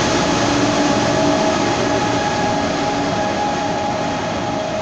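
KTX-Sancheon high-speed train running past and drawing away along the platform: a loud steady rush of rolling noise with a steady electric whine of several tones from its traction equipment, easing slightly near the end.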